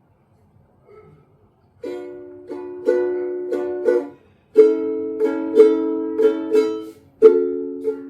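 Ukulele strumming the chords B minor, A and F sharp minor in a down-up-down-up-down pattern, starting about two seconds in, with a brief gap at each chord change.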